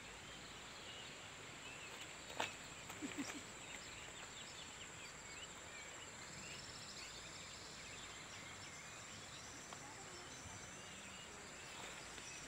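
Faint riverside ambience: a steady high-pitched insect drone with small birds chirping on and off, and one sharp click about two and a half seconds in.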